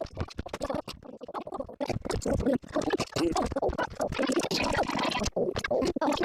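Hungry stomach growling and gurgling, played sped up: a continuous, irregular run of bubbly gurgles and crackles with wobbling pitch.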